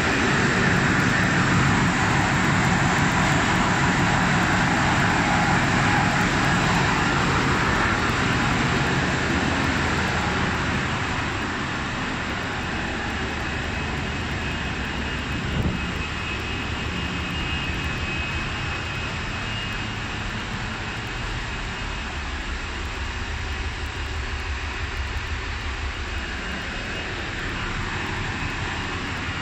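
Steady, loud drone of a ship's engine room: diesel generators and other machinery running, a dense noise with a low engine hum under it. It gets somewhat quieter about a third of the way through.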